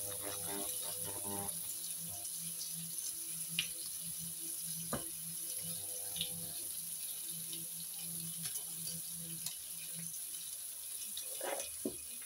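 Bacon sizzling in a frying pan: a steady hiss of spitting fat with scattered small crackles and pops.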